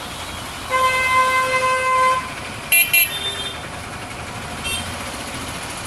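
A vehicle horn sounds one steady held note for about a second and a half over steady traffic noise, followed by two sharp clicks about three seconds in.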